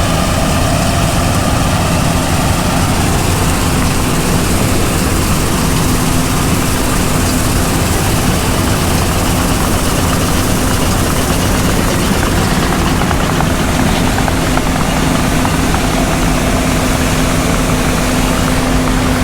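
John Deere S780 combine harvester running steadily at work, a constant loud drone with an unchanging hum.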